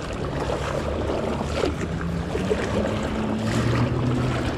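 Open-air noise of wind on the microphone and water, with a low, steady engine hum underneath that slowly shifts in pitch.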